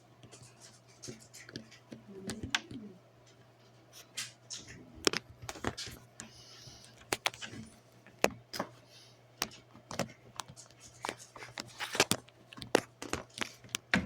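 Irregular sharp clicks and rattles of handling, as a Klein self-adjusting wire stripper is worked on a wire with the camera held in the other hand. The clicks come thicker and louder from about five seconds in.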